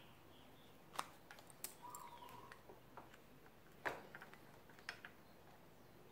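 Scattered light clicks and taps of handlebar parts on an electric scooter being handled and repositioned, around the brake lever and throttle grip. The sharpest click comes about four seconds in.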